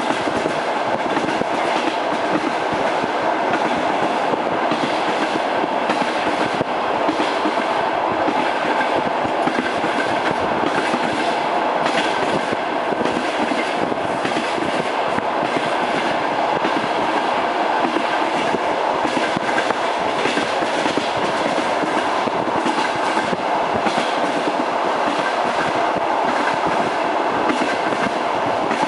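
Train wheels clattering over the rail joints: a steady rumbling run with a repeated clickety-clack knocking.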